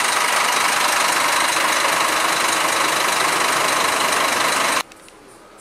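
Scania K360 coach's diesel engine idling, heard up close at its louvred engine-bay grille as a loud, steady run. It cuts off abruptly near the end.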